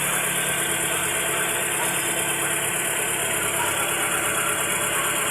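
Chevrolet Onix 1.4 four-cylinder engine running steadily at idle, smooth and with nothing knocking: the engine noise is cured now that a blown engine mount and a faulty belt-driven part have been replaced.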